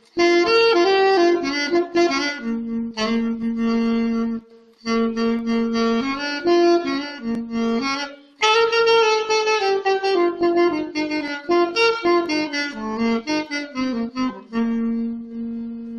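Alto saxophone played solo: a melody in phrases, broken by short breath pauses about four and a half and eight seconds in, ending on a long held note.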